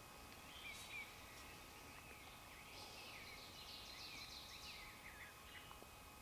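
Faint songbirds chirping and singing in spring woodland, most busily around the middle, over a quiet steady hiss of background.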